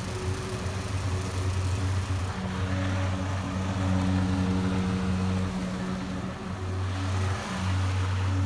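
Gas walk-behind lawn mower's small engine running steadily under its own power as it is pushed along, its note waxing and waning slightly.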